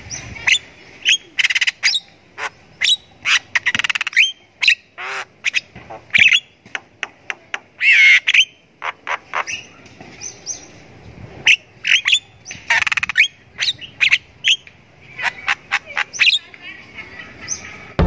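Javan myna calling vigorously: a varied, irregular run of short whistles, harsh squawks and chattering notes, with a few longer wavering notes and brief pauses between bursts.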